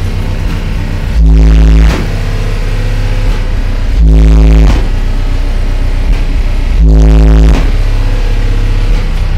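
Bass-heavy song played very loud through a pair of subwoofers in a wooden box, so loud that the recording is overloaded and distorted. A deeper, louder bass note hits three times, about every three seconds.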